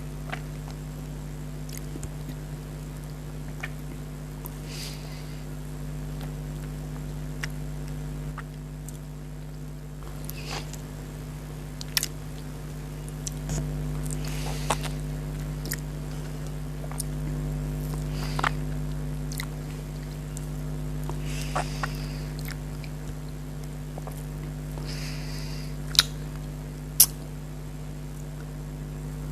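Close-miked eating sounds of mango: soft chewing and wet mouth sounds with scattered sharp clicks, the two loudest near the end. A steady low hum runs underneath.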